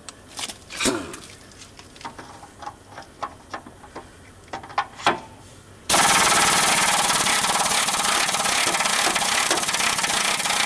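Scattered metal clinks and knocks of hand tools. About six seconds in, an impact wrench starts suddenly and rattles steadily, hammering at a stubborn rear-suspension bolt on the Corvette frame.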